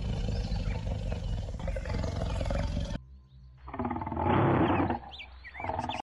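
Lion roaring. A low rumbling sound lasts about three seconds and breaks off, then a second, louder roar peaks around four seconds in.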